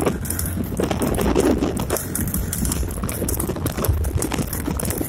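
Horse's hooves clip-clopping quickly on a paved road as it trots past, pulling a light two-wheeled sulky cart.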